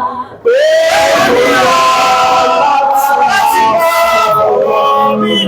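Several voices singing a worship song together, with long held notes; it breaks off briefly about half a second in.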